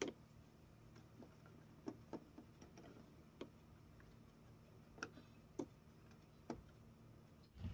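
Near silence, with about seven faint, scattered clicks and taps from hands dredging crown daisy sprigs in flour in a plastic container and setting them on a plate.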